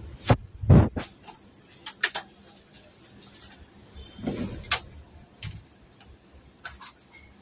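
Scattered clicks and knocks of hands handling cables and circuit boards on the metal chassis of an opened flat-screen TV, the strongest knocks in the first second.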